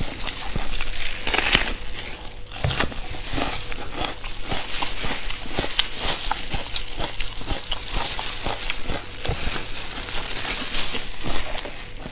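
Close mouth sounds of someone chewing braised pork large intestine, full of small clicks and crackles. Disposable plastic gloves crinkle as the hands pull the meat apart.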